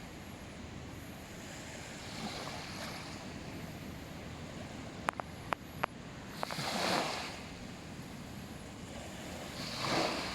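Small waves washing onto a beach, a steady rush with two louder surges, the first about seven seconds in and the second near the end. A few sharp clicks come about five seconds in.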